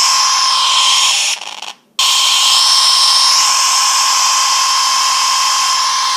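An iPhone 5s speaker blares a loud static-like hiss with a steady high tone through it. This glitch noise plays in place of the normal text alert. It cuts out about a second and a half in, then starts again half a second later and keeps going.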